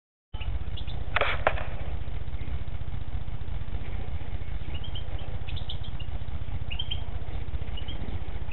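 Faint, short, high chirps of European goldfinches now and then over a steady low hum, with two sharp clicks about a second in.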